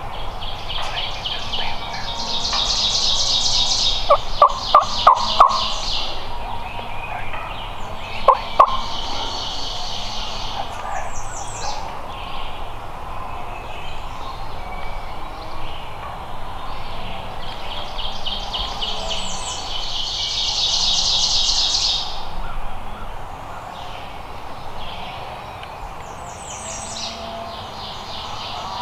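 Wild turkey calling: a quick run of about five loud notes about four seconds in, and two more a few seconds later. Repeated high songbird trills of about two seconds each sound through the woods.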